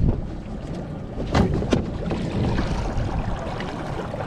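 Small fishing boat's motor running steadily under wind noise on the microphone, with two sharp knocks close together about a second and a half in.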